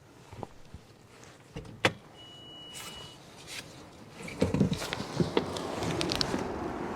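Clicks and knocks of handling in a car, with a brief electronic tone about two seconds in. From about four seconds in, blizzard wind noise rushes in and grows louder, with a few thumps, as the car door is opened.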